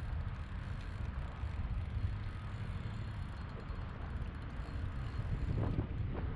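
Strong wind buffeting the microphone: a steady low rumble with an even hiss of wind over choppy water, and a couple of brief louder bumps near the end.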